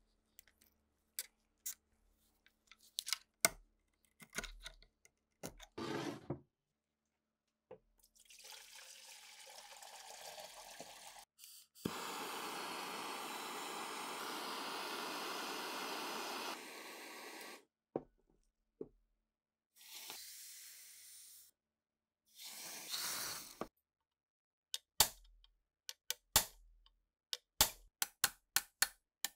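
A metal pick taps and scrapes at rust on the steel receiver of a STEN Mk2 submachine gun. Then come spells of hissing, the longest a gas torch's flame hissing steadily for about five seconds, and a quick run of light metallic ticks near the end.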